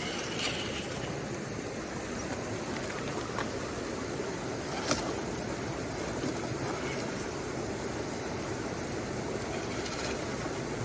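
Steady rush of flowing water, with a few short sharp clicks or knocks, the loudest about five seconds in.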